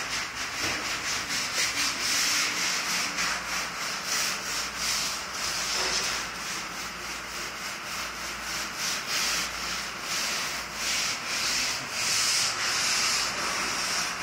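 Sandpaper rubbing over the base-coated steel body of a 1940 Mercury convertible in repeated back-and-forth strokes, a scratchy rasp that rises and falls with each stroke: a light sanding of the base coat before clear coat.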